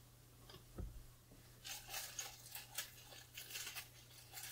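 Faint handling noise of tripod parts and packaging on a table: a low thump about a second in, then a run of light rustles and clicks.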